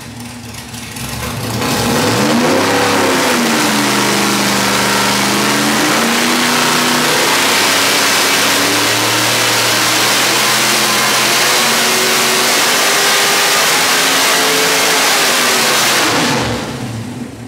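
427-cubic-inch LS V8 on an engine dyno making a wide-open-throttle pull to 6,400 RPM with 28 degrees of ignition timing. It revs up loud about two seconds in, climbs slowly in pitch for over ten seconds, then drops back down about a second before the end.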